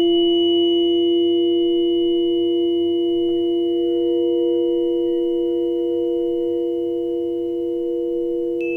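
Several tuning forks ringing together as long pure tones that slowly fade. A new high tone is struck at the start, another joins about three seconds in, and a third just before the end.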